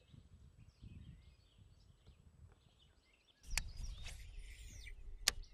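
Faint bird calls over a low rumbling background noise. About three and a half seconds in, the rumble grows louder, and two sharp clicks follow, the second near the end.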